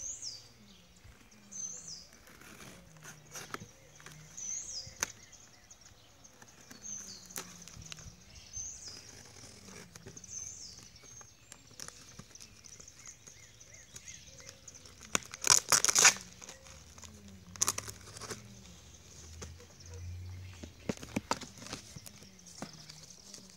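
Packing tape tearing and cardboard box flaps being pulled open, loudest in a burst about two-thirds of the way through. A bird gives a short, falling, high chirp about every two seconds over the first half.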